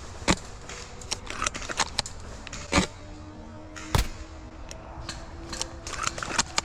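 Irregular sharp clicks and snaps, with two louder snaps near the middle.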